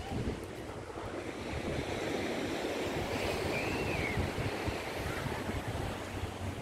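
Steady wash of sea surf with wind buffeting the microphone, and a brief high chirp that rises and falls about halfway through.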